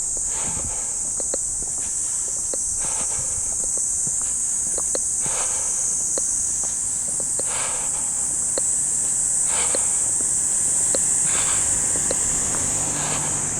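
Steady high-pitched chorus of summer cicadas, the loudest sound throughout, with the footsteps of someone walking at an unhurried pace, about one step every two seconds.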